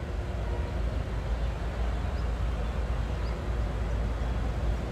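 Steady low outdoor background rumble with an even hiss and no distinct events.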